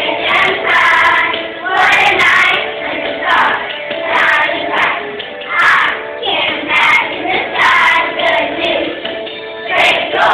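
Children singing a song over accompanying music with a steady beat.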